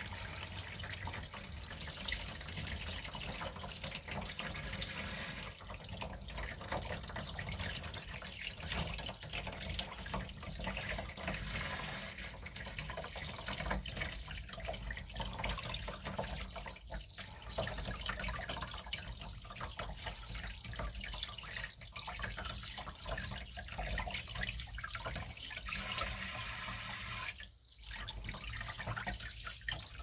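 Kitchen sink spray head running steadily, water spraying over a frog held in the hands and splashing into a plastic tub, with a brief drop in the sound near the end.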